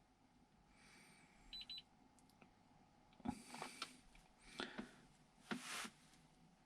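Mostly near silence, with a quick run of faint, high electronic beeps about a second and a half in, then three soft rustles.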